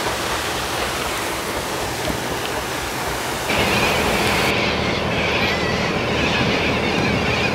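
Paddle boat under way on the river: a steady wash of wind and churned water with a low mechanical hum. About three and a half seconds in the sound steps up louder, with a stronger hiss over the hum.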